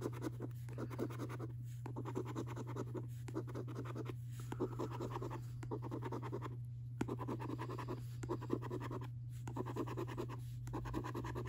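A coin scratching the coating off a paper scratchcard in quick strokes, with short pauses every second or so. A low steady hum runs underneath.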